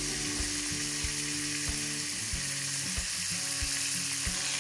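Chicken pieces frying in hot oil in a karahi: a steady sizzling hiss with occasional small pops.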